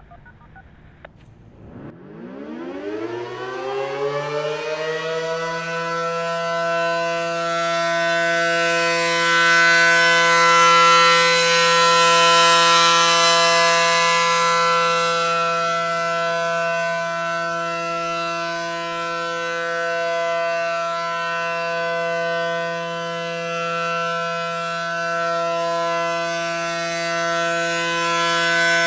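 ACA Allertor 125 rotating warning siren, with its 9/12 port ratio giving a two-note chord, starting up about two seconds in. It winds up quickly in pitch over about four seconds, then holds a steady Alert tone that swells and fades as the horns rotate.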